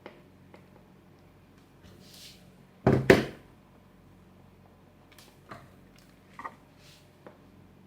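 Handling noise: scattered light clicks and taps, with one loud double knock about three seconds in.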